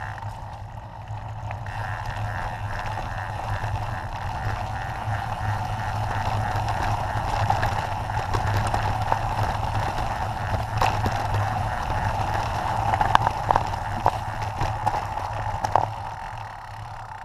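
Mountain bike rolling fast down a loose-stone dirt singletrack: a steady rush of tyre and wind noise, with sharp knocks and rattles from the bike over rough ground that come more often in the second half, the loudest near the end.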